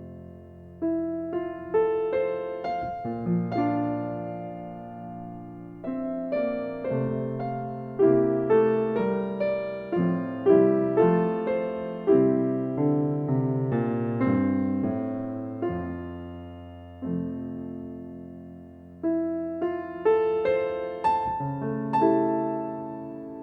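Slow piano music: chords and a melody of struck notes that ring and fade.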